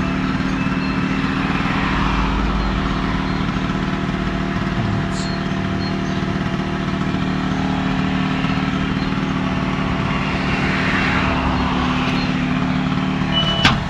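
Automatic meat vending machine running its delivery mechanism to fetch the chosen item: a steady mechanical hum and whir, with a sharp click near the end.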